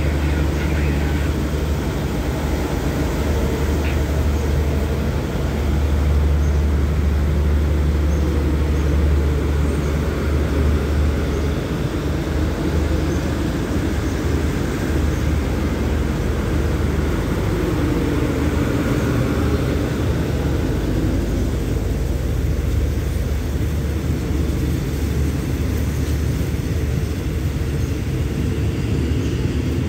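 Passenger coaches of a diesel-hauled express train rolling slowly past the platform: a steady low drone with rumble, strongest in the first ten seconds or so.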